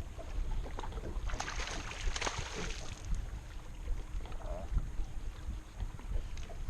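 Low wind rumble and water noise aboard a fishing boat on open water, with a louder hissing rush for about a second and a half starting just over a second in.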